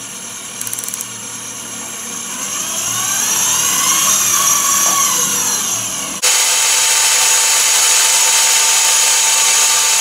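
Shimano Dendoumaru Beast Master 9000 electric fishing reel's motor whining as it winds line onto its spool. Its pitch rises and then falls over a few seconds. About six seconds in the sound switches abruptly to a steady, hissier whine.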